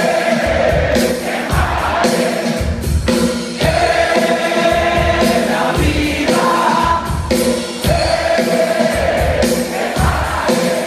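Live rock band playing a song with vocals, recorded from within the audience, with many voices singing together over a steady beat.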